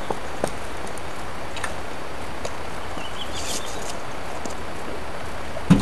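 Steady outdoor background hiss with a low wind rumble on the camera microphone and a few faint clicks. A short chirp comes about three seconds in, and a single dull thump near the end.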